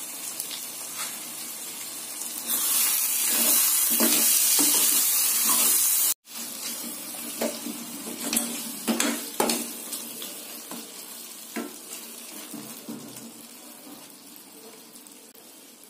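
Chicken curry sizzling in a steel pan while a spatula stirs it, with the spatula knocking and scraping against the pan. About two and a half seconds in, the sizzle swells loud for a few seconds, then cuts off abruptly. The sound grows quieter toward the end.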